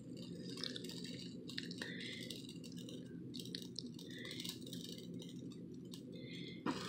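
Quiet room tone: a faint steady hum with small scattered clicks and rustles. Near the end a breathy puff begins as birthday candles are blown at.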